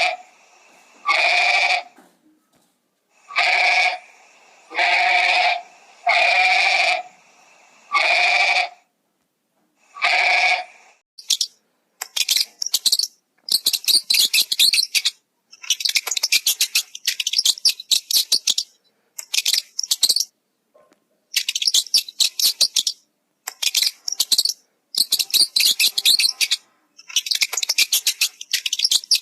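A bleating animal calls about six times in the first ten seconds, each call under a second long. After that come long runs of rapid, high-pitched clicking chatter in clusters.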